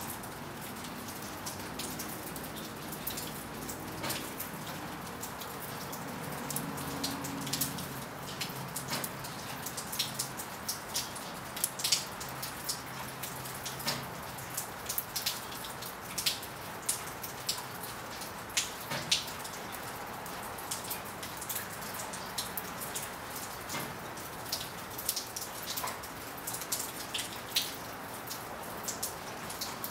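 Steady rain: a constant hiss with frequent sharp taps of single drops hitting a surface.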